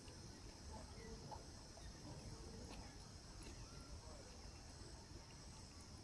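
Faint, steady, high-pitched insect chorus over a low background rumble.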